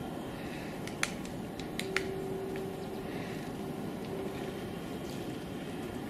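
A woodpecker's bill tapping on a tree trunk: a handful of single sharp taps between about one and two and a half seconds in, two of them louder. Under them runs a steady low rumble of background noise.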